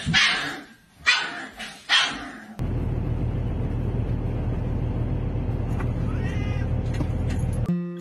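A dog barks three short times. Then the steady low hum of a truck's idling engine inside the cab, with one short cat meow that rises and falls about six seconds in.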